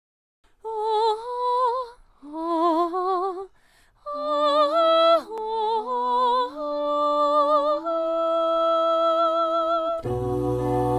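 A cappella vocal group singing a wordless opening. There are three short phrases with vibrato, then held chords. About ten seconds in, a low bass voice comes in and the voices grow fuller.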